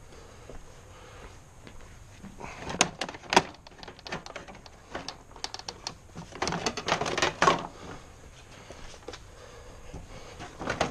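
Clicks and clattering knocks of a motorcycle's front fairing being worked loose and taken off, in two bursts about three and seven seconds in.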